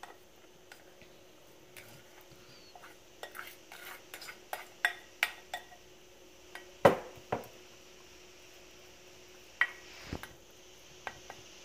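A spatula tapping and scraping against a bowl and a ceramic baking dish as cooked sushi rice is scraped out and spread: a scattering of light clicks and knocks, the loudest about seven seconds in and another near ten seconds.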